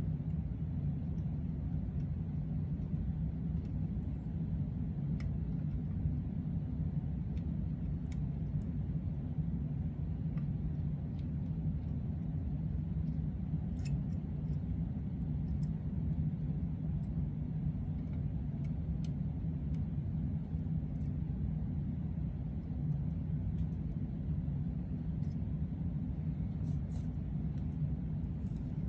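A steady low hum with a few faint small clicks scattered through it.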